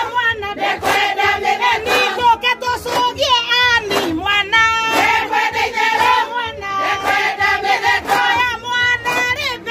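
Women's voices singing a Kikuyu ngemi, a celebratory call-and-response song, with a lead singer on a microphone and the group answering. Rapid warbling ululation trills come about 3 seconds in and again near the end, over a sharp beat roughly once a second.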